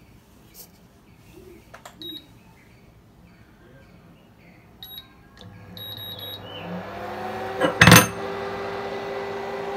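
Induction cooktop touch panel giving short high beeps as it is switched on and set. About halfway through, the cooktop's hum starts, rising in pitch and then holding steady. A loud knock comes just before the end.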